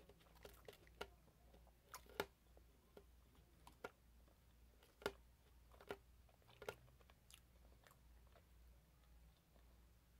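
Close-miked mouth sounds of someone chewing fried chicken strips: quiet, sharp wet clicks and smacks, irregular, about one a second, the loudest about two and five seconds in.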